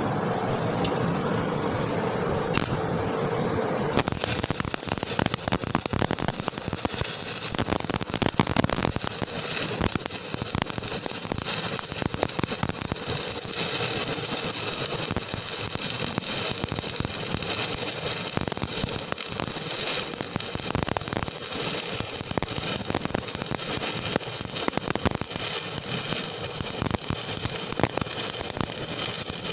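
Stick (SMAW) welding arc crackling steadily as a lap-joint bead is run, starting with an abrupt change about four seconds in; before that, a steady hum.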